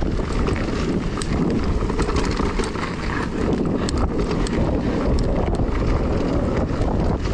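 Wind rushing over the microphone and an electric mountain bike's tyres rolling on a dirt trail, with scattered short clicks and rattles from the bike.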